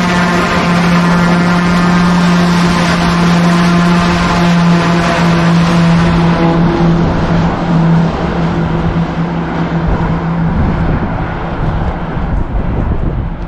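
Twin-engine turboprop airplane running at high power with a steady droning hum and roar, fading away in the last few seconds.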